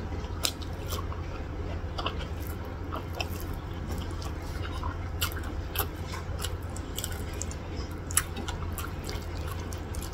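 Close-up eating sounds: wet chewing with frequent short mouth clicks and smacks as a person eats saucy rice and curried vegetables by hand, over a steady low hum.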